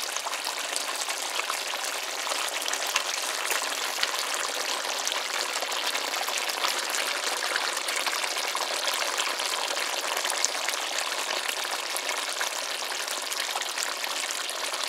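Hot duck curry simmering in a pot on the stove, its cooked-down sauce bubbling and sizzling steadily with many fine crackling pops.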